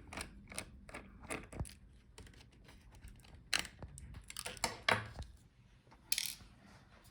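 Light, irregular clicks and taps of a screwdriver and small screws being worked out of a laptop's plastic chassis, with a couple of louder knocks and a short hissy scrape about six seconds in.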